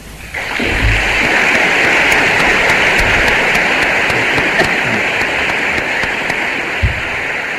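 Audience applauding steadily, starting just after the closing words of a lecture.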